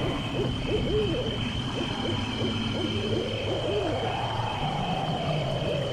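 Owl hooting: a run of short hoots, then a longer drawn-out call near the middle, over a low steady rumble and a thin steady high tone.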